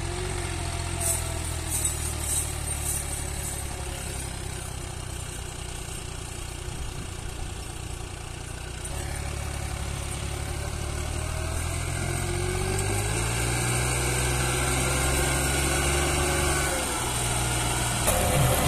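Massey Ferguson diesel tractor engine labouring under heavy load as it pulls a loaded soil trolley out of a pit, a steady low drone that grows louder about halfway through and rises in pitch as it pulls harder.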